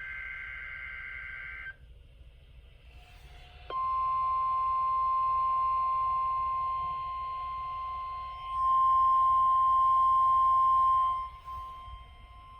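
NOAA weather radio receivers picking up the weekly test: the last of a warbling SAME data burst, then after a short gap the steady 1050 Hz warning alarm tone. The tone gets louder a little past halfway, then drops back near the end.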